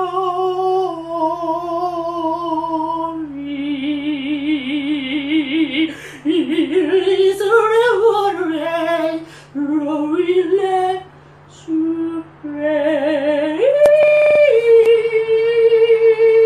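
A solo voice singing a song in long, wavering notes with heavy vibrato. It ends on a long held high note that stops abruptly.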